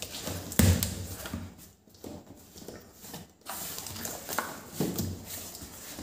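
Cardboard box flaps being pulled open and handled: irregular scraping and rustling of corrugated cardboard, with a dull thump about half a second in.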